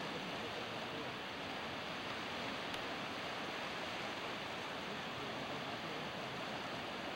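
Steady, even rushing noise of sea surf and wind.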